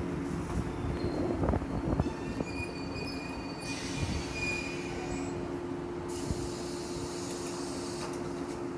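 JR 185 series electric train heard from inside a motor car, coming to rest at a platform: clunks and high brake squeal in the first few seconds. It then stands with a steady hum from its equipment, broken by two spells of hissing.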